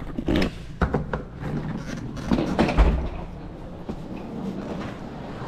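Handling noises: a few sharp clicks and knocks, then a dull thump about three seconds in, followed by quieter rustling, as things are moved about.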